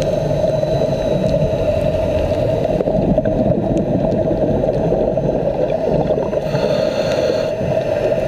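Steady, muffled underwater noise: a dull, even rush with a constant hum through it, as a camera picks it up below the surface.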